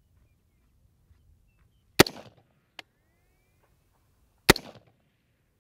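Two rifle shots from a Robinson Armament XCR-L in 5.56 firing 55-grain .223 ball, about two and a half seconds apart, each a sharp crack with a short echoing tail. A short click comes less than a second after the first shot. The first shot misses and the second hits the prairie dog.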